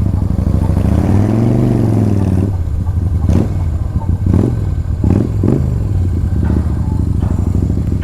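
Motorcycle engine running, its pitch rising and falling once in the first couple of seconds, then settling to a steady idle broken by several short throttle blips.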